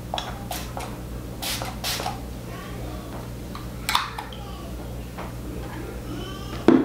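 Setting spray misted onto the face from a pump bottle of Anastasia Beverly Hills Dewy Set: a handful of short sprays, strongest at about one and a half, two and four seconds in. A louder knock comes near the end.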